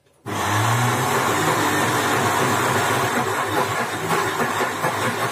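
Electric mixer-grinder grinding soaked moth dal into batter: loud, steady motor and blade noise that starts about a quarter of a second in.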